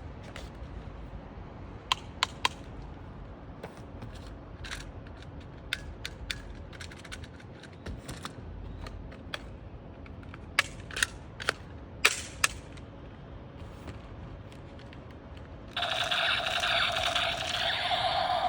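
Toy blaster being test-fired: sharp, scattered shot snaps, three close together early and a quick cluster in the middle. Near the end comes a loud steady buzz lasting about three seconds.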